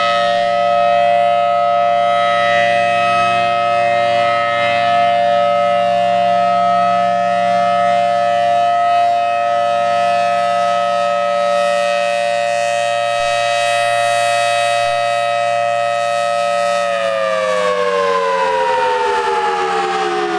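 Federal Signal Thunderbolt 1000T outdoor warning siren sounding its steady alert: a loud chord of several held pitches. About three-quarters of the way through, all the pitches begin to fall together as the siren winds down at the end of its 3-minute full alert.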